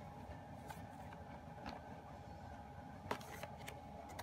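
Glossy K-pop album pages being handled and turned by hand: a few short paper rustles and taps, the loudest about three seconds in, over a faint steady hum.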